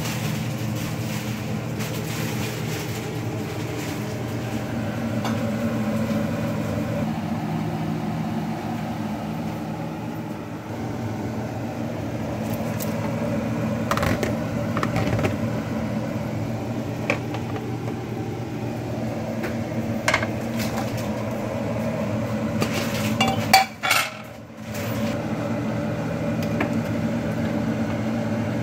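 Steady low hum of a motor running, with a few clinks of cookware. A louder clatter comes about 23 seconds in, after which the hum briefly drops out and then returns.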